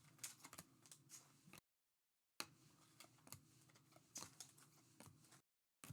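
Faint rustling and light clicks of trading cards being handled and flipped through, broken twice by total silence.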